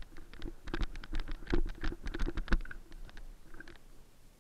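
Footsteps crunching and rustling through dry brush and twigs: an irregular run of crackles and soft thuds, loudest in the middle, thinning out near the end.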